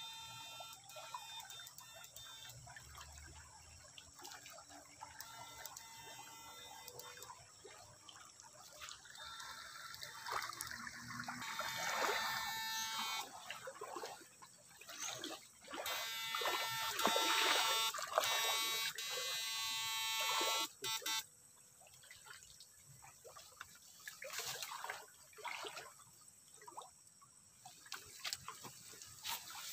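Backpack electrofishing shocker buzzing with a steady electric whine while its probe poles sweep through a shallow stream, with water splashing and sloshing around the wading legs. Both get louder in the middle, then drop away suddenly about two-thirds of the way through.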